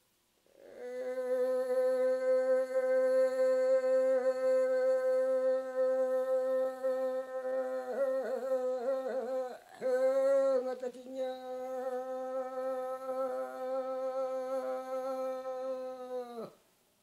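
A man's unaccompanied voice holds one long, level note. About halfway it wavers and breaks briefly, then holds the same note again until it falls away near the end. This is a Yami (Tao) fishing song sung in single-line chant style.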